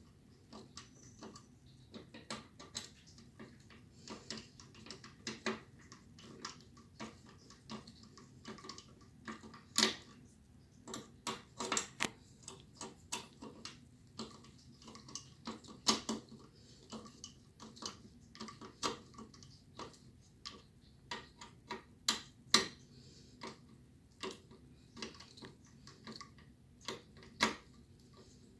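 Irregular clicks, taps and light knocks from ceiling fan parts and hardware being handled and fitted, a few a second, with a sharper knock now and then.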